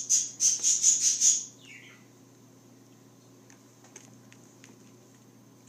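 A bird chirping in a quick run of about eight short, loud, high-pitched chirps that stop about a second and a half in, followed by a few faint clicks.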